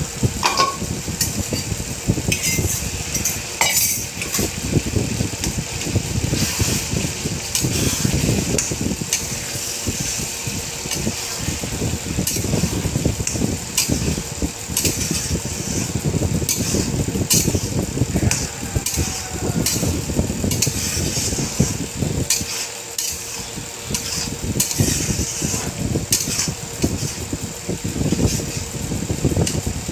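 A long steel spatula stirring and scraping a ground paste frying in ghee and mustard oil in an iron kadhai. It makes repeated metal-on-metal clinks and scrapes against the pan over a continuous sizzle, with a steady low rumble underneath.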